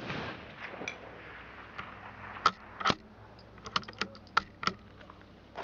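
The fading tail of a .17 HMR rifle shot, then a series of sharp metallic clicks: the CZ bolt-action rifle's bolt being worked to eject the spent case and chamber the next round. There are two clicks a little under half a second apart, then a quick run of about six more about a second later.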